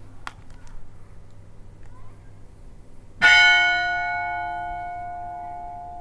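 Church bell struck once about three seconds in, ringing on and slowly dying away: one stroke of a slow funeral toll.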